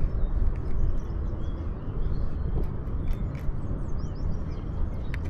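Wind buffeting the microphone as a steady low rumble, with small birds chirping over it in many short, quick calls.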